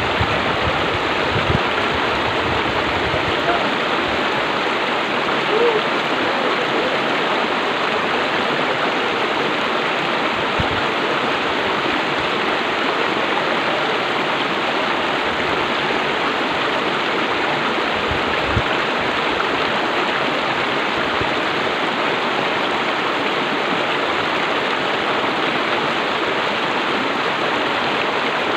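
River rapids rushing and splashing over boulders: a steady, unbroken rush of water.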